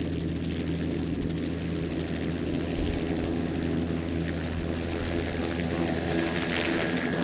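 Helicopter running steadily: a continuous, even engine and rotor hum with no change in pitch.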